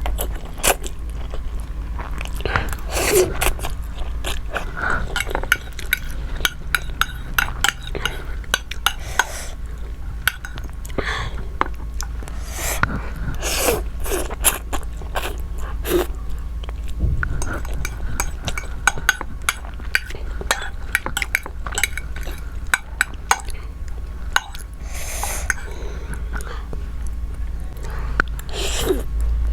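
Close-miked mukbang eating: chewing and biting with many small clicks and clinks of cutlery against a plate, over a steady low hum.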